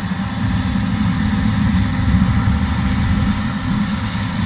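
John Deere S780 combine harvester running steadily in the field, with a heavy, uneven low rumble throughout.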